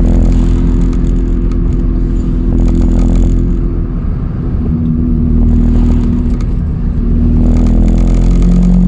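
Toyota Aygo engine running under way, heard inside the cabin as a steady low drone and rumble; its note drops a little about four seconds in, then climbs again toward the end. With a solid gearbox mount fitted, a lot of engine vibration is carried into the car.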